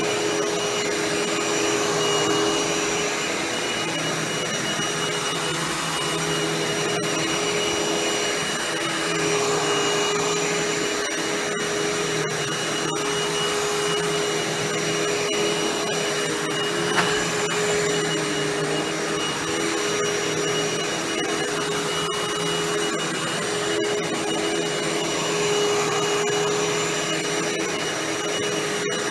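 Hoover WindTunnel Anniversary Edition bagless upright vacuum running steadily, a constant whine over the rush of air, its level rising and falling slightly. One brief click about halfway through.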